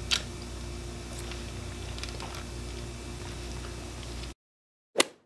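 Sipping through a straw from a foam cup: a few faint slurps and small clicks over a steady low room hum. The sound cuts out abruptly about four seconds in, broken by one short sharp click near the end.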